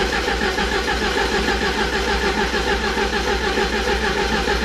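1987 Porsche 944S's 16-valve four-cylinder engine cranking on the starter with an even, rhythmic pulsing. It turns over but does not fire.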